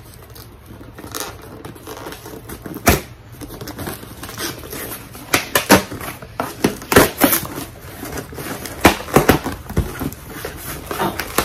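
Packaging and small items being handled and opened by hand: crinkling and rustling with several sharp clicks and knocks, most of them bunched in the second half.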